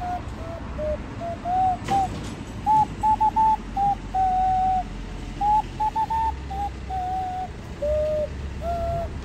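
Hand whistle: a tune blown into cupped hands, a string of pure, hooting notes that step up and down, mostly short with a few held longer.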